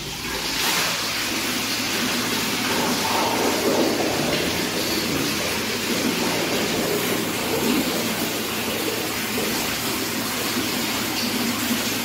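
Small fountain jets in a tiled pool spraying up and splashing back into the water, a steady rush of falling water.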